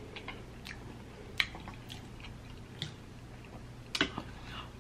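A person chewing a mouthful of food: soft wet mouth clicks and smacks, with a few louder ones scattered through.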